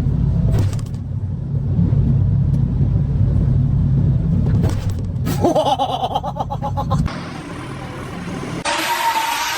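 A vehicle engine running with a steady low rumble. The sound changes abruptly about five seconds in to wavering higher tones, and changes again near the end.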